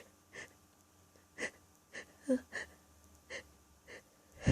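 A person's short, sharp catching breaths, about seven of them, as a sneeze builds, with a brief whimpering voice sound a little past two seconds in. The breaths build to a much louder burst right at the end.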